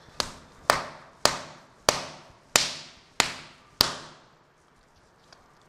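A ball of stiff wheat-flour dough slammed by hand onto a kitchen countertop, seven sharp slaps about every 0.6 s, each trailing off briefly, then quiet. The dough is being beaten to make it soft.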